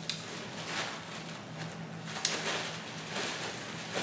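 Paper napkin rustling and crinkling softly as hands are wiped with it, in short irregular bursts, with one sharp little click a couple of seconds in.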